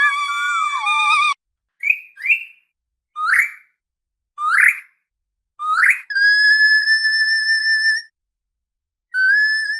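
Orca (killer whale) whistles and calls: a wavering held call, then five short upswept calls, then a long steady high call about six seconds in, and a short rising call near the end.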